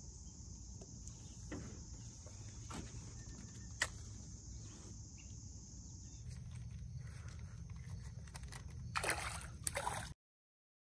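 Lakeside ambience from a kayak: light water sloshing and a steady high insect hum, broken by a few sharp clicks, the loudest about four seconds in. Near the end a fish splashes and thrashes at the surface, then the sound cuts off abruptly.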